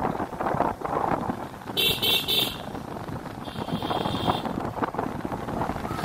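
Vehicle horn beeping three quick times about two seconds in, then one longer beep about a second later, over steady wind rushing across the microphone of a moving motorbike.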